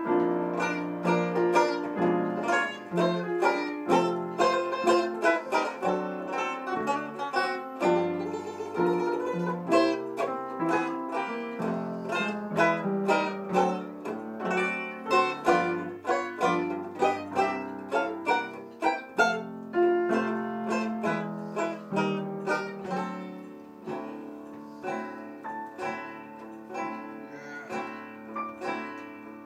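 Banjo taking a solo chorus in a small traditional jazz band, strumming chords in a steady swing rhythm with piano accompanying; the playing gets softer about two-thirds of the way through.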